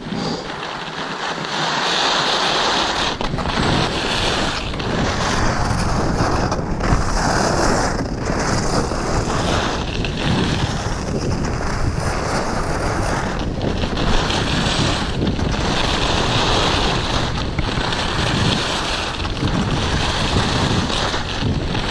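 Wind buffeting the microphone of a skier's body-worn camera, mixed with skis hissing and scraping over packed snow on a downhill run. The noise is loud and swells and fades every few seconds.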